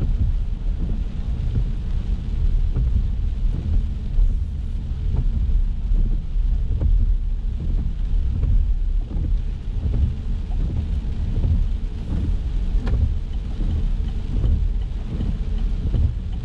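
Rain pattering on a moving car, over a steady low rumble of tyres on wet road. A faint regular ticking comes in over the last few seconds.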